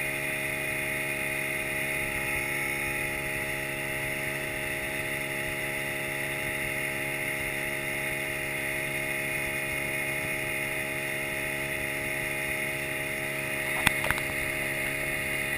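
Yamaha 40 hp outboard motor running steadily at speed, the boat underway. Two short sharp knocks near the end.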